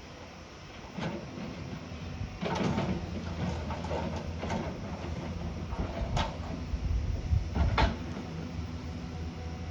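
Diesel engine of a heavy earthmoving machine running steadily, with repeated metallic clanks and knocks of its working gear, the loudest about two and a half seconds in, past the middle and near the end.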